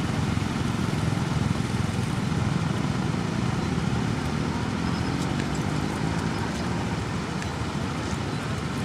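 Heavy diesel truck engine running steadily, a low, even rumble.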